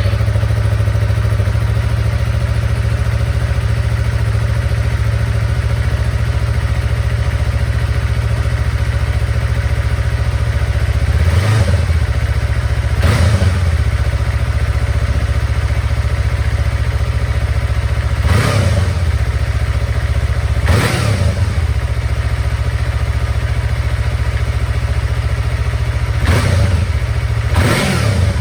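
2015 Yamaha R3's parallel-twin engine idling steadily through its stock exhaust. It gives six short throttle blips, in three pairs spread through the second half, each rising and falling back to idle.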